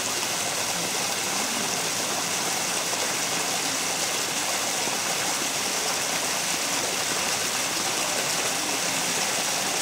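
Steady rushing of running water, an even hiss with no splashes or breaks.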